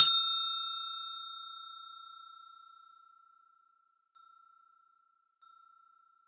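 A single bell 'ding' sound effect struck once, ringing with a clear tone and fading away over about three seconds.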